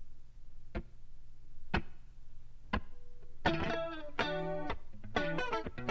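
Opening of an instrumental jazz-funk recording: a sharp tick about once a second over a low steady tone, then chords come in about three and a half seconds in.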